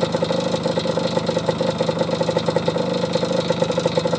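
1973 Suzuki TS50 Gaucho's 49cc two-stroke single-cylinder engine running steadily, with a fast, even patter of firing pulses.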